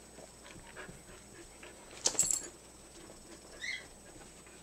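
A Shetland sheepdog and a golden retriever scuffling in play, with faint panting. There is a sharp click about two seconds in and a brief high whimper a little before the end.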